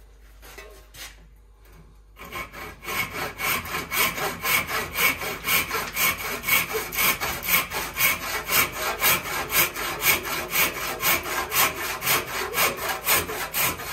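Handsaw cutting into a wooden hammer handle held in a vise, deepening the slot for a new wedge: steady back-and-forth strokes, about three a second, starting about two seconds in.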